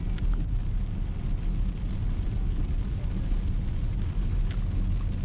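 Steady low rumble of a car driving, heard from inside the cabin, with the hiss of tyres on a wet road.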